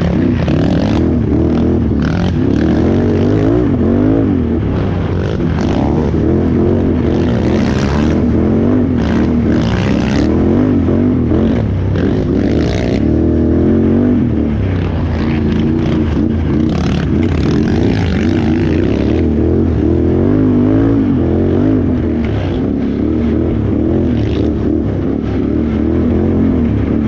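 Can-Am Renegade XXC 1000R ATV's V-twin engine revving up and down continuously under race throttle over rough off-road terrain, with scattered knocks and scrapes from the machine.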